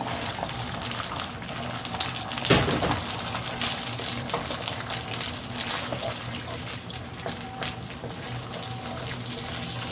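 Eggs sizzling in hot oil and tomato paste in a frying pan, with a sudden louder hiss about two and a half seconds in as they go in, then steady frying with the clicks and scrapes of a wooden spatula stirring them.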